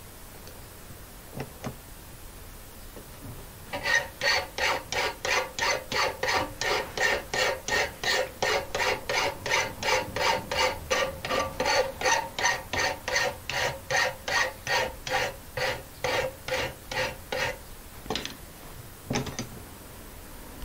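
Hand file rasping along the edge of a wrought iron dagger blade clamped in a vise, shaping the tip. About four seconds in, a steady run of back-and-forth strokes starts, about three a second, and lasts some fourteen seconds. Two single strokes follow near the end.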